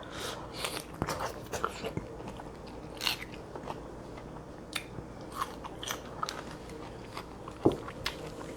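Close-miked eating: a person biting and chewing, a string of irregular short crunches with one louder crunch near the end.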